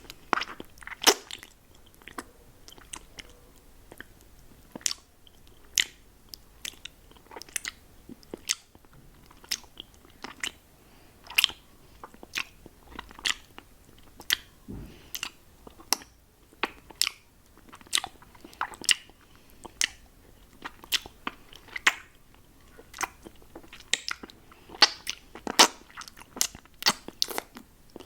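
Mouth sounds from sucking and licking a lollipop: irregular sharp wet clicks and smacks, several a second, some much louder than the rest.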